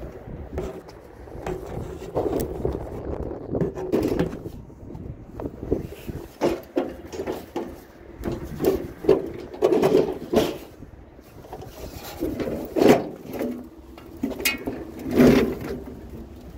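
Irregular knocks and clunks of hard objects, with a few brief squeaks; the loudest hits come about 10, 13 and 15 seconds in.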